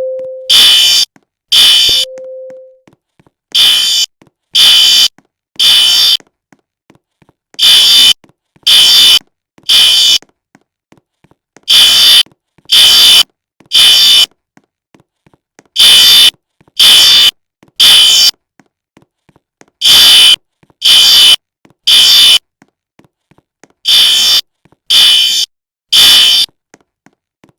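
A fire alarm sounding the three-pulse evacuation pattern: three shrill half-second blasts about a second apart, then a short pause, repeating every four seconds. A fainter, lower tone sounds briefly between the first blasts.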